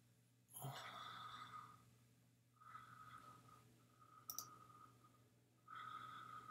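Near silence with a person's faint breathy whispering in several short stretches, and a single computer mouse click about four seconds in.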